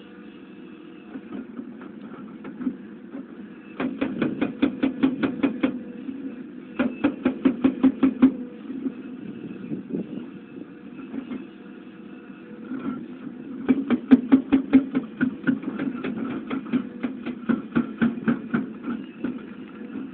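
Crawler excavator's diesel engine running steadily under load, with runs of rapid, even knocks, about six a second, from a hydraulic breaker hammering rock. There are two short runs, then a longer one of about six seconds near the end.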